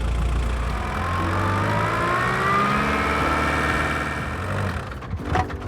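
Volkswagen Golf II diesel engine running with a steady low note and a whine rising in pitch partway through. Near the end the engine sound falls away and a few sharp clicks are heard.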